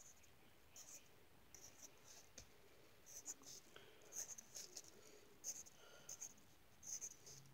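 Faint pencil strokes scratching on lined notebook paper: short, irregular marks as small curved scales are sketched in.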